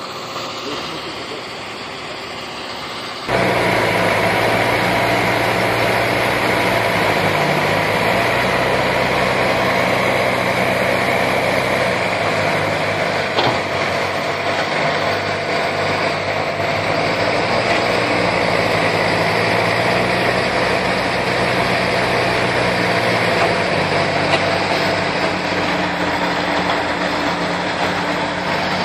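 Heavy diesel machinery engines running steadily under work, from a Caterpillar excavator bogged in swamp mud and a forestry tractor beside it. The engine note drops and climbs back a few times, and the sound turns suddenly louder about three seconds in.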